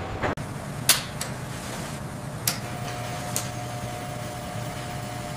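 A steady low machine hum with four sharp clicks in the first three and a half seconds, the first the loudest. A faint steady high tone comes in after the third click.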